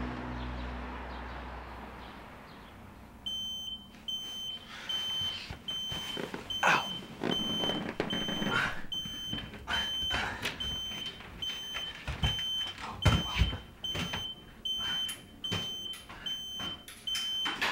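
Music fading out, then from about three seconds in a digital alarm clock beeping steadily at one high pitch, about one and a half beeps a second. Under it are rustling and a few dull thumps.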